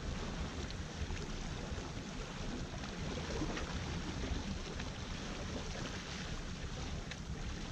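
Wind buffeting the microphone in a steady low rumble, with small waves washing against the shoreline rocks.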